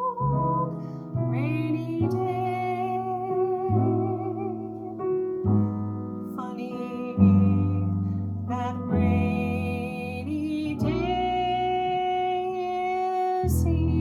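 A soprano singing a slow ballad with piano accompaniment, her voice wavering with vibrato at first and holding one long note over the last few seconds.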